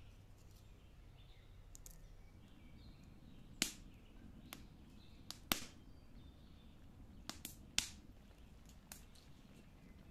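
Wood fire crackling under a cooking pot, with irregular sharp pops through the middle of the stretch. Faint bird chirps in the background.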